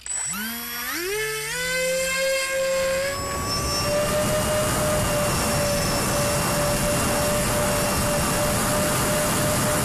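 Twin SunnySky 2212 Kv1100 brushless electric motors of a Sonicmodell Binary RC plane spooling up for takeoff, their whine rising in steps over about three seconds. They then hold a steady high whine with a loud rush of air across the onboard camera's microphone as the plane climbs out.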